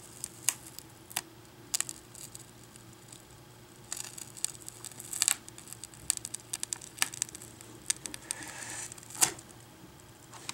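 Double-sided adhesive separating as a Chromebook's LCD panel is peeled away from the touchscreen assembly: scattered faint crackles and ticks, thicker about halfway through, with a short hiss and a sharper click near the end.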